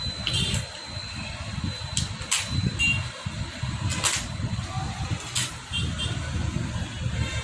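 A few sharp metallic clicks and taps from work on a motorcycle engine's clutch cover, over a continuous, uneven low rumble of a motor vehicle engine running.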